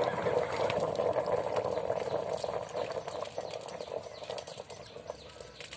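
Crackling and sputtering from welding on a railway rail, fading gradually over a few seconds.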